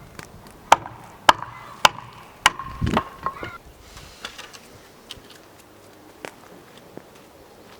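Five quick, evenly spaced blows of a tool striking wood, each with a short ring, followed by a few faint taps.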